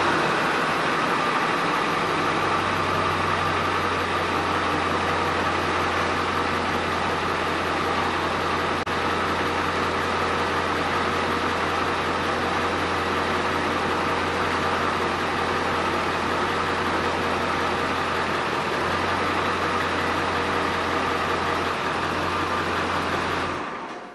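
Ford F-350 Super Duty's 7.3 L Power Stroke turbo-diesel V8 idling steadily right after start-up, then switched off just before the end.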